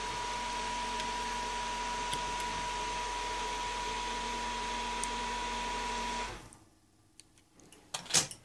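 Small electric motor of a model helicopter rig running steadily with a high whine, then cutting out about six seconds in. A few clicks and a sharp knock follow near the end.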